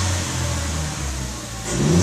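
Chevrolet Cruze 1.4-litre turbocharged four-cylinder engine, fitted with a K&N cold air intake, being revved while stationary and heard from inside the car: the engine note holds, drops back about one and a half seconds in, then starts rising again for the next rev near the end.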